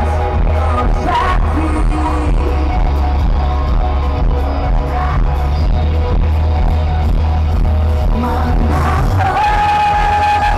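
Live Brazilian gospel worship music played loud over a stadium sound system: sung melody over a steady driving bass beat, with the crowd's voices mixed in.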